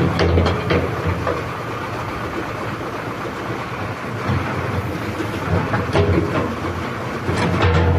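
Excavator engine running steadily under load, with several sharp metallic clanks from the bucket and quick coupler as it is worked.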